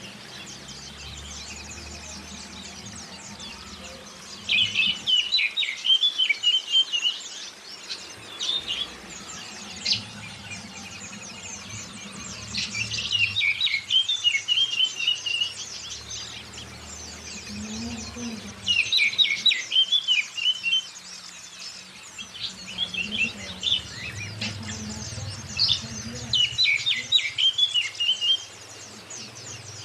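Oriental magpie-robin and white-eye song: bursts of loud, rapid song phrases every few seconds over a continuous fainter high twittering.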